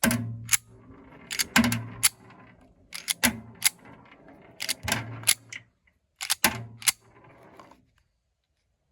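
Springfield Hellcat pistol's slide racked by hand about six times, sharp metallic clacks as it cycles and ejects rounds from the magazine in a function check of the newly fitted threaded barrel.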